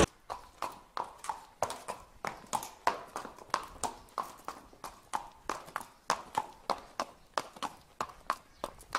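Horse hooves clip-clopping at a walk on a hard street, about four hoof strikes a second, slightly uneven.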